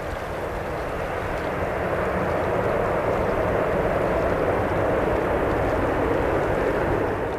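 Distant jet engine noise of an Airbus A321-200 rolling out on the runway after landing: a steady rushing sound that grows a little louder about a second or two in, then holds.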